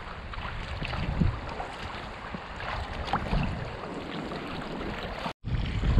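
Paddle strokes splashing and water lapping against a Feathercraft Kahuna folding kayak under way, with wind rumbling on the microphone. The sound drops out briefly near the end.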